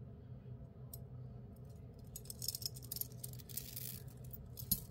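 Beads on a strung necklace and its metal elephant pendant clicking and rattling softly against each other as the necklace is handled, with a cluster of small clicks in the middle and one sharper click near the end.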